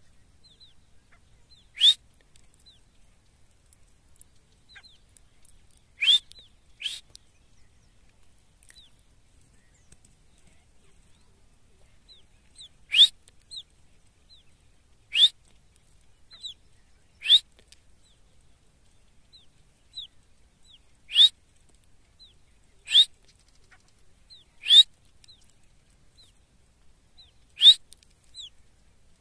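Francolin (teetar) calling: loud, short, shrill rising notes repeated every two to three seconds, some followed by a quieter second note, with faint chirps in between.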